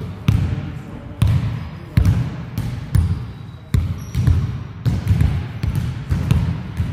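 A basketball bouncing on a hard court: a run of dull thuds, unevenly spaced, about one to two a second.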